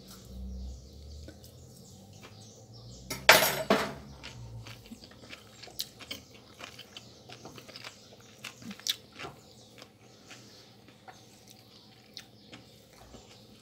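Wooden spoon tossing a rice salad in a ceramic dish: light clicks and scrapes of spoon against dish and food, with one louder burst of noise lasting under a second about three seconds in.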